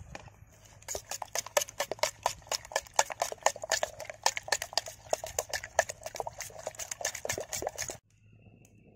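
A plastic spoon beating raw egg batter with chopped onion in a steel pot, making quick wet clacking strokes, several a second. The strokes start about a second in and cut off abruptly near the end.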